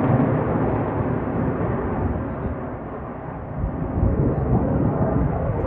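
F-22 Raptor's twin Pratt & Whitney F119 turbofan engines passing overhead: loud, deep jet rumble that eases slightly about three seconds in, then swells again.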